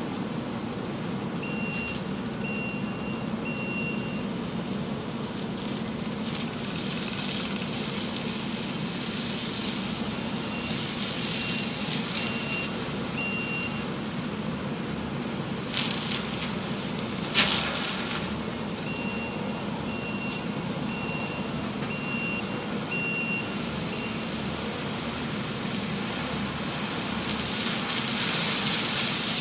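Kubota SVL90 compact track loader running a SSECO forestry mulcher through brush: a steady diesel drone with the mulching head chewing. The loader's backup alarm beeps in three spells as it reverses, and two sharp cracks come a little past halfway.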